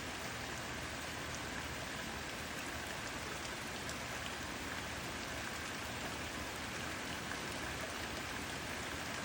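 Steady rain falling, an even hiss of drops with a few faint individual drop ticks.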